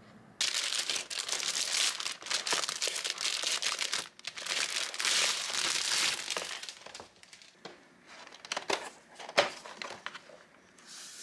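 Clear plastic film crinkling as it is pulled off a cardboard snack box, starting about half a second in and going on for several seconds. After that come quieter handling noises of the cardboard box, with a few sharp clicks as its lid is lifted.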